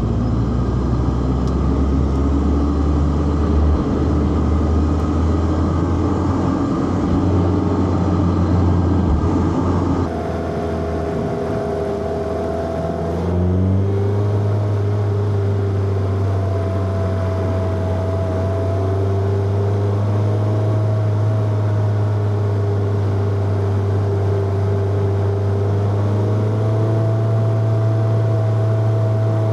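Four-cylinder car engine running under way with road noise, its note changing abruptly about ten seconds in and stepping up in pitch a few seconds later.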